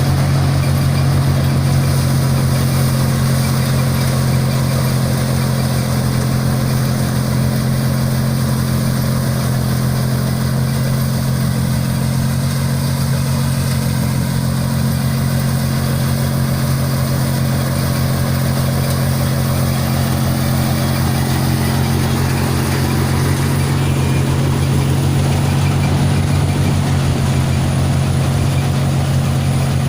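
John Deere 5045D tractor's diesel engine running steadily at a constant speed.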